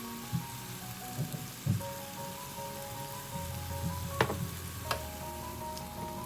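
Soft background music with a gentle melody, over the faint sizzle of paella simmering in the pan, with a few light knocks as prawns are set in place.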